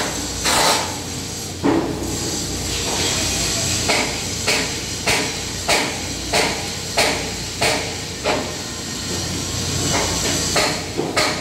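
Hammer blows on metal repeating evenly, about three every two seconds, over a steady hiss from the electric welding arcs.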